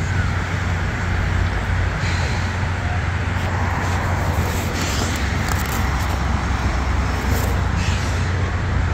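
Steady road traffic: cars passing on a busy multi-lane road, a continuous wash of tyre and engine noise over a low steady hum.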